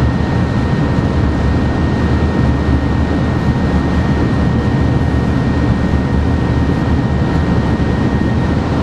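TGV Atlantique high-speed train running at close to 300 km/h, heard inside the driver's cab: a loud, steady rumble and rush with a thin steady whine above it.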